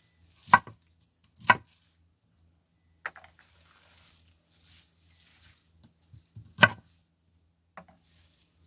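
A knife chopping beetroot on a cutting board: three loud, sharp chops, two within the first second and a half and one a little past the middle, with a few lighter knocks between.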